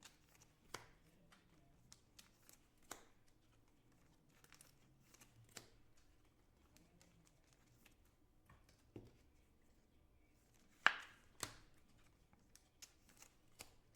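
Faint, scattered clicks and taps of trading cards and card packaging being handled on a table, with two sharper taps about eleven seconds in.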